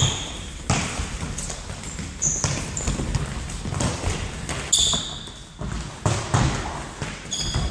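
Indoor football in a wooden-floored sports hall: the ball is kicked and bounces with sharp knocks, over running footsteps. Trainers give short high squeaks on the floor four times.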